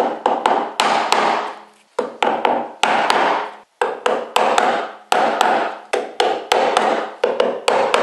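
A hammer lightly tapping a 3/4-inch (19 mm) wood chisel, about two or three strikes a second, each with a short ring. The chisel is cutting the outline of a lock faceplate recess into a painted wooden door frame.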